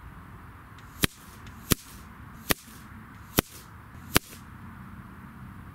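BSA Ultra SE .177 sub-12 ft/lb PCP air rifle firing 13-grain Zan slugs: five sharp shots, each under a second apart.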